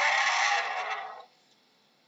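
A bear's raspy, breathy vocalization, a noisy sound with no clear pitch that cuts off a little over a second in.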